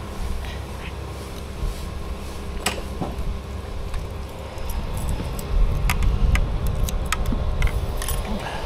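A bunch of keys jangling and clicking in a hand, most busily in the second half, over a motorcycle engine idling steadily.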